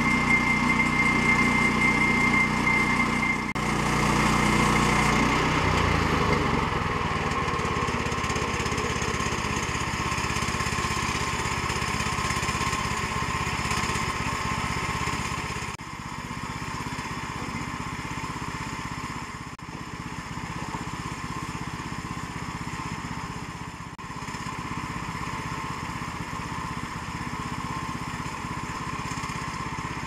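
Woodland Mills HM122 portable bandsaw mill's gasoline engine running steadily. A high steady tone in the first few seconds stops, and about six seconds in the engine note changes and stays on at an even pitch, with brief drops in level at a few points.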